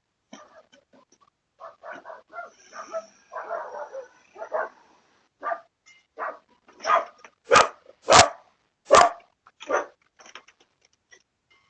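A dog barking in a run of short barks, softer at first, then several loud barks about two-thirds of the way in.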